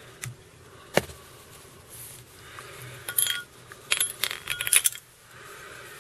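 Small metal fly-tying tools clinking against each other and the vise while a feather is wound on as a collar. A single sharp click about a second in, then two short runs of light ringing clinks.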